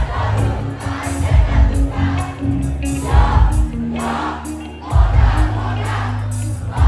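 Live band playing loudly, with heavy bass and a steady drum beat, and a crowd singing along.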